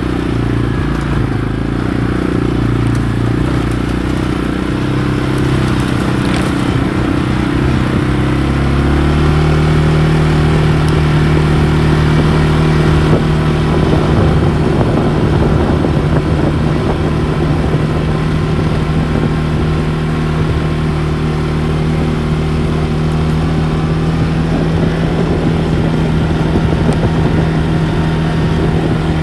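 ATV engine running under way, its pitch shifting in the first few seconds, then rising about a third of the way in and holding at a steady cruising speed.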